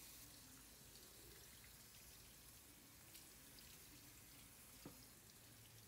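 Faint, steady running water from a kitchen tap into a stainless steel sink while raw pork spareribs are rinsed by hand, with one small click about five seconds in.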